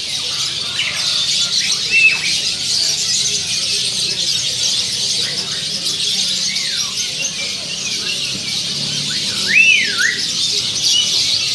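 A dense chorus of many caged songbirds chirping and chattering together. A few louder whistled notes sweep up and down over it, the strongest about two seconds in and near the end.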